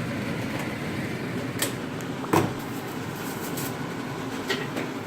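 A few light knocks of cookware at the stove over a steady hiss, one knock about halfway through louder than the rest.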